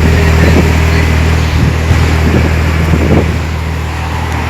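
Porsche 911 Carrera GTS 3.8-litre flat-six with an IPE exhaust, idling steadily with a deep, even drone.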